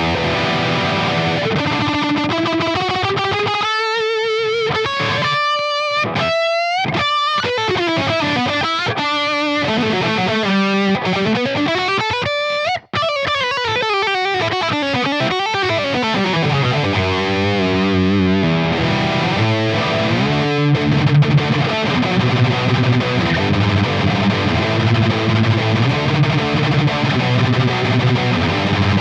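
Maybach Lester 59 electric guitar played with heavy distortion in a metal style, with long sweeping glides up and down in pitch through the first half. The sound cuts out for a split second about halfway through, then continues with faster riffing.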